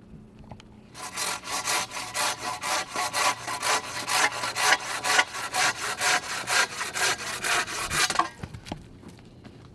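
Hand saw cutting through a log in quick, even strokes, about four a second, starting about a second in and stopping about a second and a half before the end.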